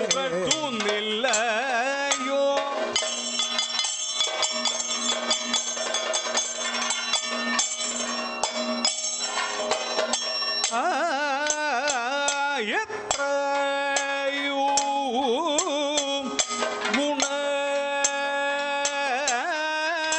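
Kathakali accompaniment: a singer's melody with heavy ornamented pitch bends over a steady drone, with quick maddalam drum strokes throughout.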